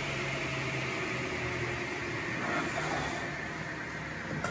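Steady whirring hiss with a faint low hum from a running motor.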